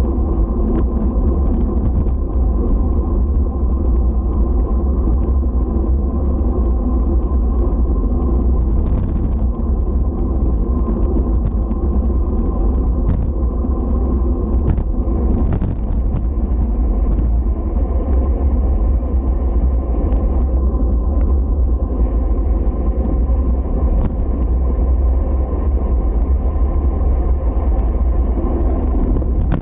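Steady low rumble, with a few sharp clicks scattered through it.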